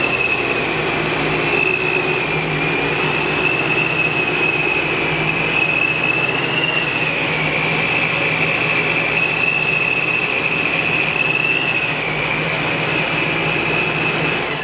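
A car running steadily on a chassis dyno: a constant loud mechanical run with a high whine that wavers slightly and a low hum underneath. It cuts off abruptly at the end.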